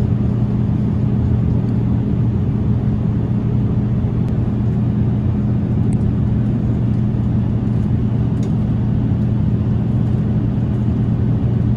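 Steady cabin drone of an Airbus A350-900 airliner in flight: a constant rumble of engine and airflow noise with a low, even hum.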